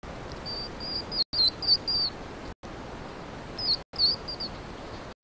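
Hedgehogs squeaking: two runs of quick, high-pitched chirps with a pause between, over a steady hiss.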